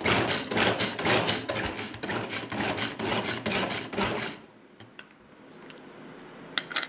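Ganesh pull-cord manual vegetable chopper being worked, its cord yanked out and rewinding again and again at about three pulls a second, each stroke a rasping whirr of the blades spinning through onion. The pulling stops sharply about four seconds in, and a brief double click follows near the end.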